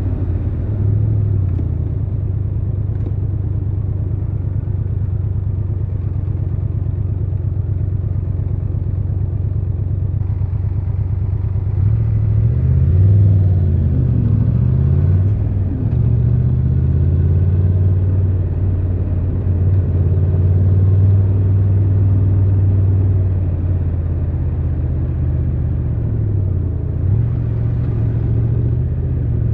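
Triumph Tiger 1200 Rally Pro's three-cylinder engine running at low revs while riding, heard from the rider's position. About halfway through, the revs rise and fall a couple of times, and near the end they drop briefly before picking up again.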